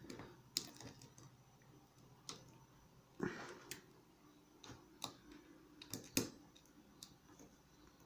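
Faint, irregular small metallic clicks and scrapes of a hook pick and tension wrench working the wafers of a car wafer lock as it is single-pin picked.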